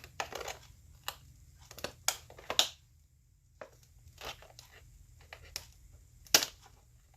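The smashed paper cone of an Electro-Voice EVM15B 15-inch speaker crinkling and tearing in short, irregular crackles as a bent wire hanger pushed through it pries it back up. The crackles come loudest around two seconds in and once sharply near the end, with a brief lull in between.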